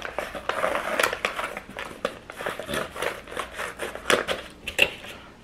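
Clear plastic lid being worked off an aluminium foil takeout pan: irregular crinkling and crackling clicks of plastic and foil, with the sharpest snap near the end.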